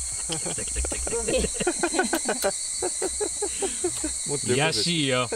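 Insects chirring steadily in a high, even drone, with people's voices talking quietly underneath in short syllables.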